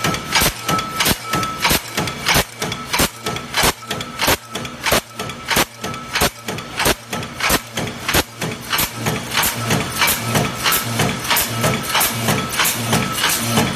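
Power press punching easy-open-end shells from tinplate sheet, running in a fast, even rhythm of sharp strokes, a few a second, over a steady low machine hum.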